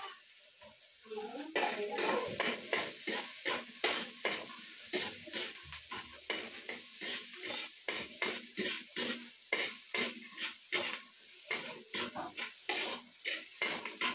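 A metal ladle scraping and stirring in a steel wok, about two strokes a second, starting about a second and a half in, over the steady sizzle of garlic and onion sautéing in oil.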